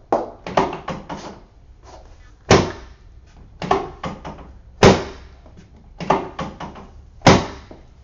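Drop section of a chiropractic drop table snapping down under the adjustment thrust during a hip adjustment: three sharp thunks about two and a half seconds apart, each preceded by a few lighter clicks and knocks.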